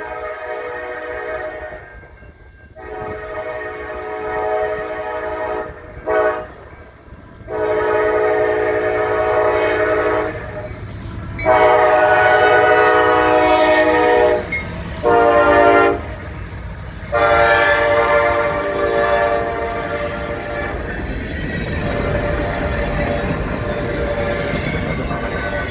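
Locomotive air horn, several notes sounding together, blowing a run of blasts that ends in the long, long, short, long pattern of the grade-crossing signal. Under it and after the last blast, the train's rumble and wheels on the rails as it passes.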